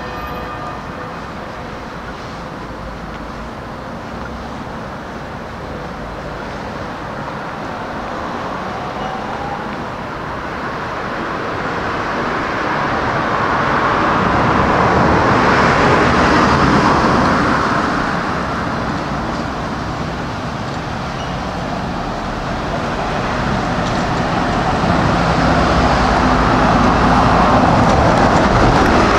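Street traffic: cars passing, their tyre and engine noise swelling to a peak about halfway through and again near the end.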